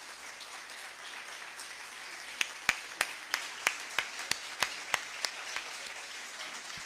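Audience applauding, with about ten sharp, louder claps close by, about three a second, from a little over two seconds in until about five seconds.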